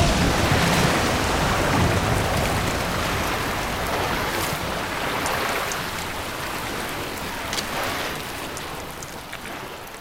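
Film sound effect of glowing fluid gushing out of a downed alien tripod's opened hatch: a heavy rushing, splashing pour that is loudest at first and slowly dies away. A few sharp crackles sound over it.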